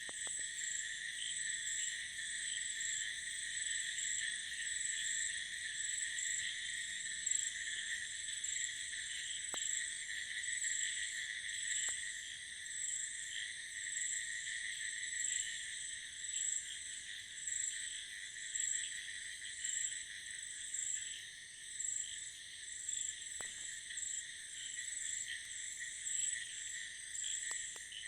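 Night chorus of frogs and crickets calling after heavy monsoon rain. It is a dense, steady mix of calls, with a high, rapidly pulsing insect trill on top.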